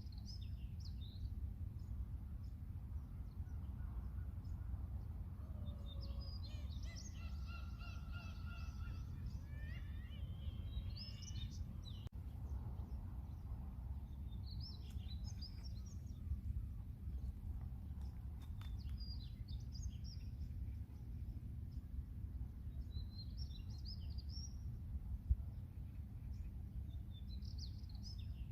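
Birds, seagulls among them, calling at intervals over a steady low rumble: scattered short high chirps, and one longer call with several rising notes after it about a quarter of the way in.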